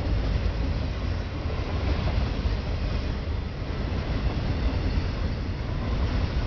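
Freight train of autorack cars rolling past at speed: a steady rumble of steel wheels on rail, heaviest in the low range.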